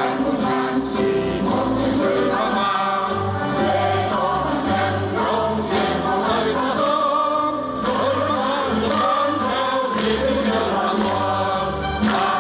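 A choir of women and men singing a song together.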